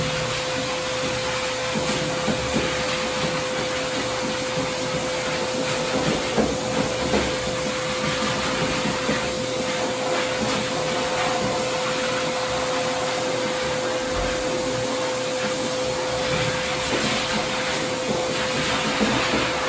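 Pet blow dryer at a self-serve dog-wash tub running steadily: constant rushing air with a steady whine.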